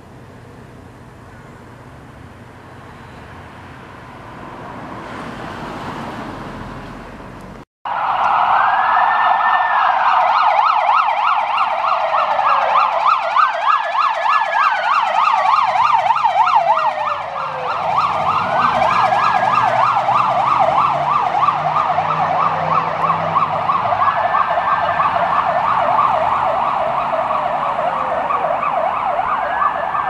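Police sirens on a Ford F-150 police truck start suddenly about eight seconds in: a rapid yelp with a slower wail over it that rises, holds and falls every few seconds. Before that there is only street traffic, with a vehicle passing.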